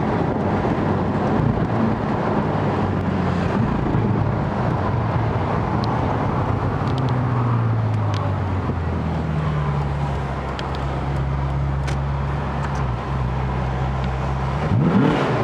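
Ferrari California's 4.3-litre V8 running steadily under cruise with road and tyre noise, heard from inside the cabin. Near the end the revs climb sharply.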